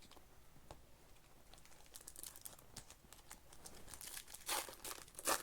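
Foil trading-card pack wrappers crinkling and tearing as packs are handled and opened, faint for most of the time with a few sharper crackles near the end.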